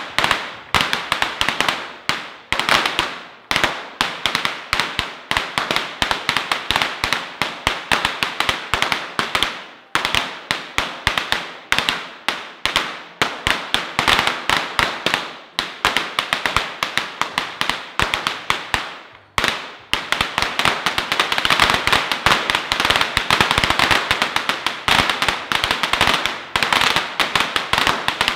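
Firecrackers going off in a rapid, irregular string of sharp bangs, several a second. There are short lulls about ten and nineteen seconds in, and the popping is denser after that.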